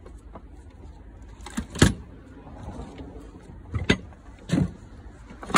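Used metal outboard and jet ski parts knocking and clanking as they are handled and shifted in a pile, with a loud knock about two seconds in and three more near the end.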